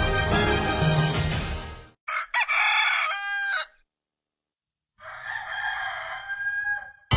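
Background music fades out, then a rooster crows once, for about a second and a half. After a short silence a fainter, noisier sound follows.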